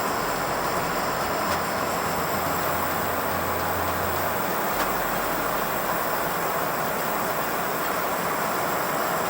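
Shmel-2 primus stove burning with a steady rushing noise from its pressurized burner flame.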